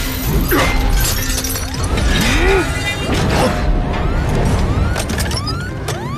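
Action-scene soundtrack: music mixed with crashing, shattering metal impacts, then a quick run of rising electronic zips in the second half.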